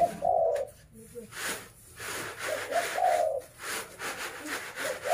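A dove cooing three times, about every two and a half seconds, over repeated brief swishing and rattling of unhusked rice grain tossed in woven bamboo winnowing trays.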